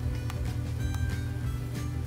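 Background music with held tones and light recurring percussive clicks.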